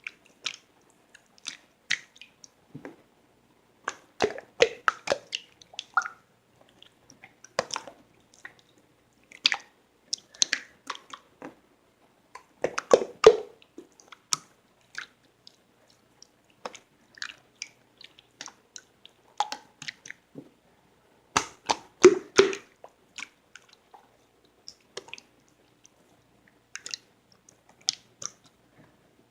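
Close-miked, irregular soft clicks, squishes and crackles coming in small clusters with quiet gaps between them, the loudest clusters about thirteen and twenty-two seconds in.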